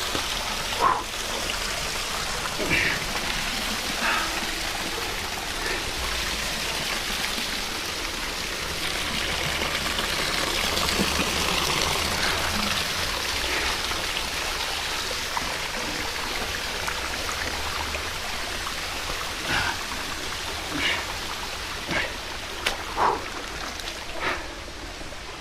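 Waterfall water running and splashing steadily, with a few short, sharp splashes or knocks scattered through it.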